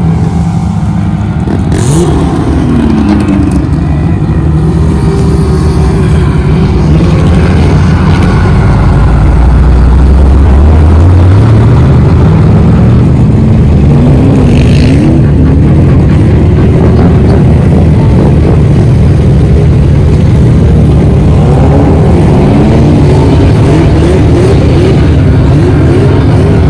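Engines of off-road vehicles revving hard on a sand dune hill climb, loud throughout, the pitch climbing and dropping again and again as the throttle is opened and eased.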